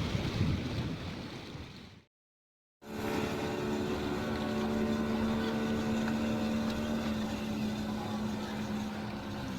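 Wind rumbling on the microphone, fading out into a brief cut to silence. Then a boat's motor running steadily, with an even, unchanging hum.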